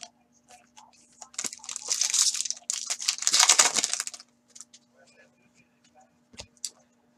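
A foil hockey-card pack being torn open and crinkled: two rustling tears over a few seconds, then a few light clicks as the cards are handled.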